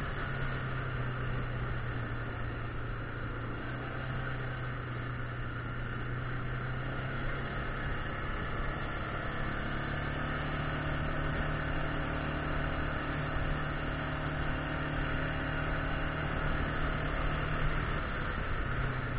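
Yamaha Grizzly 600 ATV's single-cylinder four-stroke engine running at a steady cruise, its note rising slightly about halfway through. Tyres on gravel add a steady hiss.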